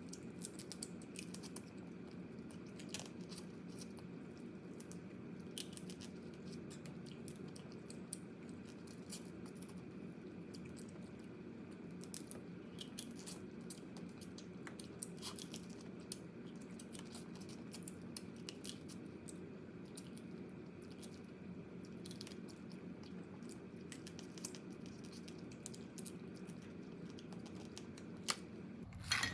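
Crab being eaten close to the microphone: scattered small cracks, crunches of shell and chewing over a steady low hum, with a louder clatter near the end.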